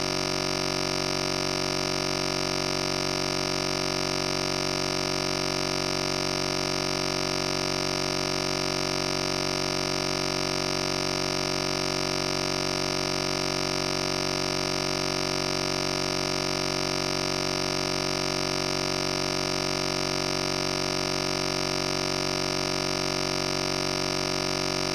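Steady synthesizer drone: a dense held chord that stays exactly the same throughout, with no beat or melody.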